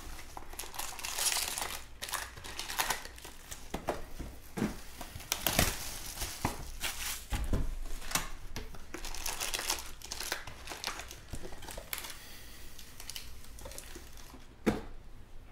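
Foil trading-card packs crinkling and rustling as they are pulled from a cardboard hobby box and laid down in rows, with small taps as they land and one sharp knock near the end.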